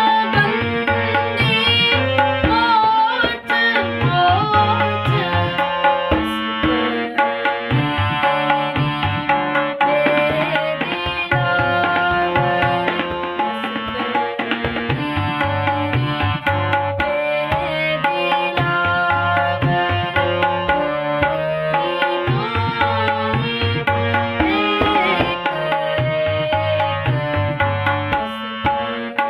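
Harmonium playing a melodic passage of a Gurbani shabad in Raag Tilang, over a steady drum beat. A girl's singing voice is heard in the first few seconds and briefly again later.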